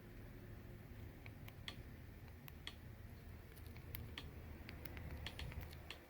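Faint, irregular clicks and ticks over a low steady hum, more frequent in the second half.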